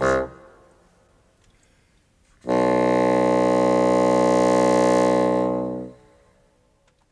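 Solo bassoon: a short note breaks off, and after about two seconds of rest a single long held low note sounds for about three and a half seconds and fades out, the final fermata note of the piece.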